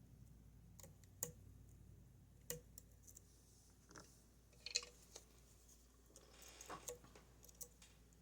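Faint, scattered metallic clicks and ticks of a lock pick and tension wrench working the pins of a Goal Z lock, with a small flurry of clicks a little after the middle. This is single-pin picking, probing for the one pin that will not set.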